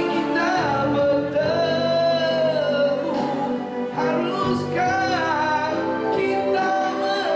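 A man singing a Malay song into a microphone through a PA, over amplified keyboard backing music.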